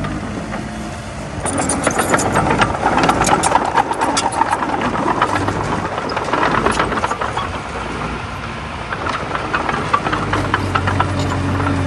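Komatsu D20A crawler bulldozer's diesel engine running, with dense metallic clattering and rattling through much of the middle; the engine's steady hum comes through clearly again near the end.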